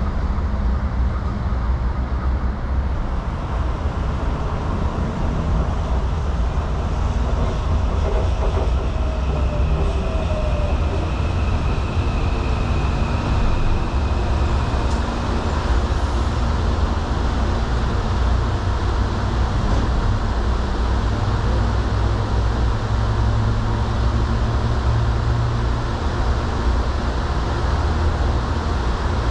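Electric commuter train running through the station with a steady heavy rumble. A faint high whine comes and goes in the middle.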